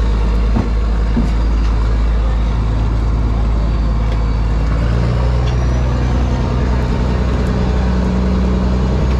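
A trawler's diesel engine running steadily, a loud low drone whose hum shifts slightly about five seconds in.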